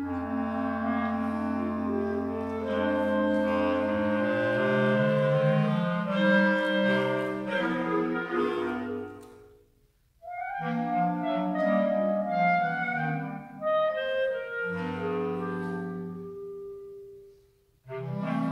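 Clarinet ensemble playing slow sustained chords over a low bass part. The music breaks off into a brief silence about halfway through, resumes, fades away near the end and enters again.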